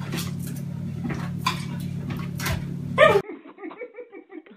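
A dog jumping and scrabbling at a kitchen oven door: quick clicks and taps of claws against the door and the wooden floor, over a steady low hum. A louder sharp sound comes about three seconds in.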